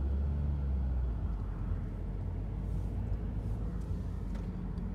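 Car cabin noise while driving slowly: a steady low engine and road rumble, with a stronger low hum for about the first second.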